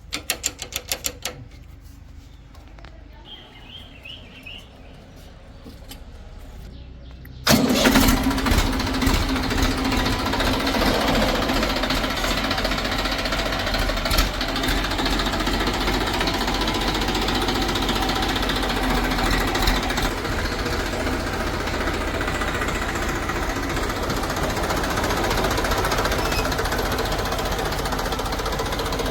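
Heavy diesel machinery engine running loudly and close, cutting in suddenly about seven and a half seconds in after a quieter stretch that opens with a quick run of clicks.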